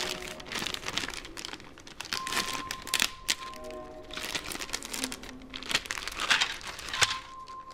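Clear plastic parts bag crinkling and crackling as it is handled and slit open with a pocket knife.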